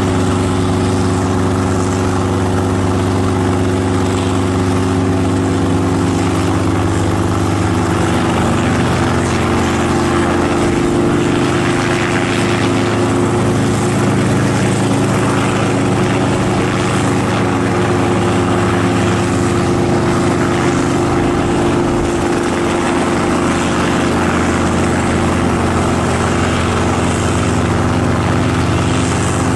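Helicopter running loudly and steadily, its engine and rotor sound shifting in pitch about eight seconds in.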